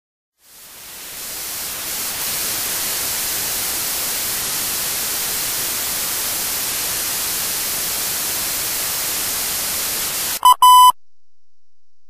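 Steady hiss of static fades in and holds, then stops as a Morse code practice tone beeps a short dit followed by a longer dah: the letter A.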